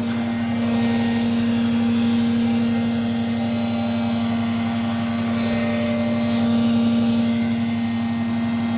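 Hoover Softwave Autowasher A0113 washing machine in its final spin at about 1100 rpm. The motor and drum give a steady whining tone that holds level throughout.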